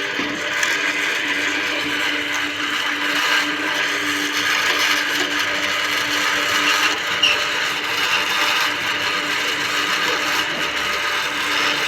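A machine running steadily on a building site, a constant hum under a dense hiss, with no clear change in speed.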